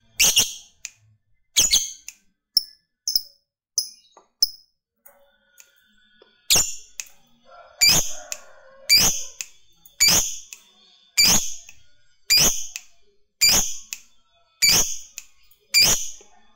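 Lovebird giving loud, sharp single chirps, repeated evenly about once a second from midway. These are the single ticking calls that keepers call ngetik. A few shorter, higher chirps come earlier.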